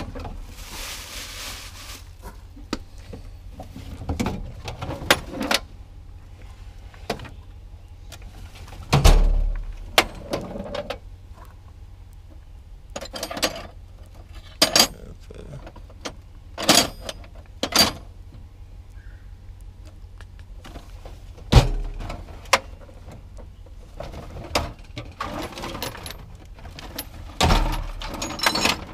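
Metal hand tools clinking and clanking as they are picked up and set down while rummaging through a toolbox, in irregular sharp clanks with a few heavier thumps.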